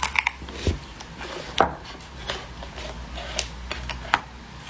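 Scattered light taps and clicks, about half a dozen sharp separate ones, as leaf-shaped green jelly sweets are picked up and set back on a plate. A steady low hum runs underneath.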